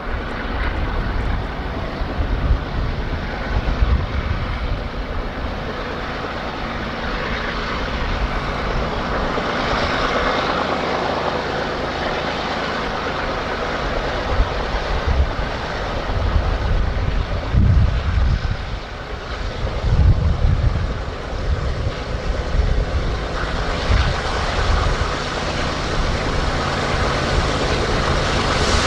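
BNSF diesel freight locomotive engines running with a steady drone, with louder low rumbles about two-thirds of the way through.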